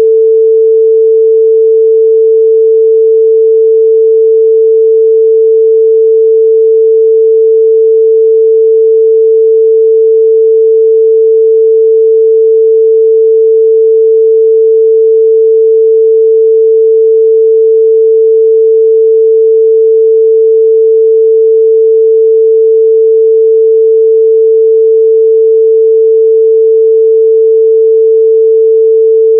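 A steady 445 Hz sine-wave test tone, one pure pitch held loud and unchanging.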